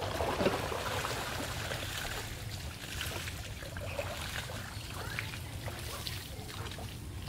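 Water trickling and sloshing as a cast net is hauled in by its rope through shallow river water, with a few small splashes and a louder slosh about half a second in.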